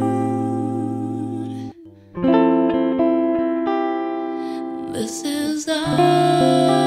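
Song with a sung voice wavering in vibrato over guitar; the music drops out for a moment about two seconds in, then the guitar comes back in with fresh plucked notes.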